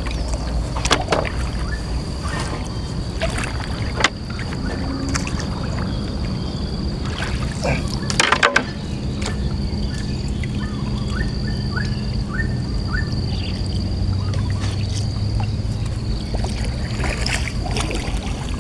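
Fast-flowing river water sloshing and trickling around a small fishing boat, with a few sharp knocks, the loudest about eight seconds in. A steady high-pitched tone and a low hum run underneath.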